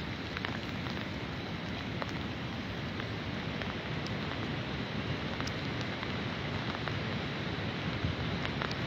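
Approaching storm: a steady rushing of wind and rain in bare woodland, dotted with scattered sharp ticks of raindrops.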